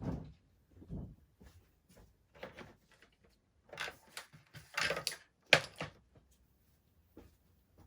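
Hands handling small craft supplies on a desk: scattered light clicks, taps and rustles, busiest around the middle, with one sharper click about five and a half seconds in.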